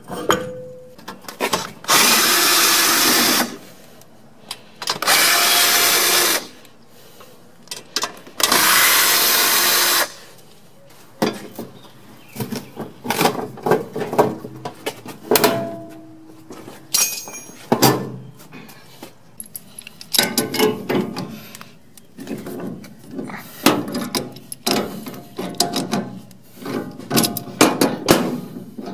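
Power drill running three times, about a second and a half each, during the furnace teardown. After that come irregular metal clanks and rattles as the sheet-metal parts of the cabinet are handled and pulled out.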